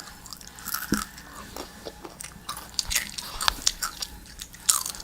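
Doritos tortilla chips being chewed, with irregular crisp crunches.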